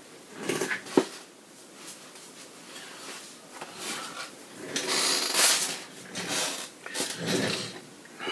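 Repair tools scraping and clicking against an iPad Pro as its display is worked loose: a sharp click about a second in, then a series of rough scraping strokes, the longest near the middle.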